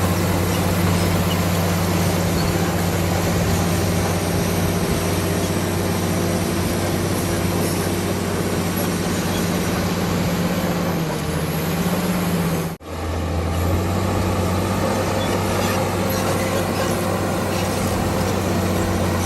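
Heavy diesel engine of a crawler bulldozer running steadily under work, a low even drone, cut off for an instant about thirteen seconds in before carrying on the same.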